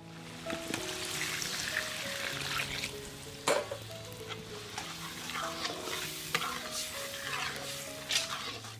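Vegetables sizzling in hot oil in a large aluminium karahi while a steel spatula stirs and scrapes them, with frequent clicks of metal on the pan and one sharp knock about three and a half seconds in.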